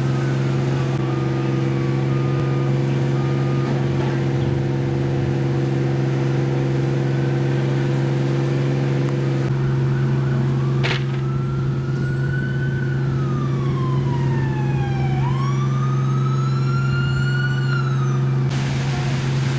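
Fire engine running with a steady low drone. About eleven seconds in, a fainter siren wails, rising, falling and rising again over several seconds, and there is a sharp click near the start of it.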